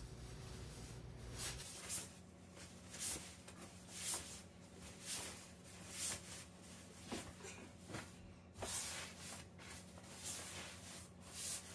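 Rustling and swishing of a large fabric laundry bag and the blankets and clothes being stuffed into it, in irregular swishes about once a second.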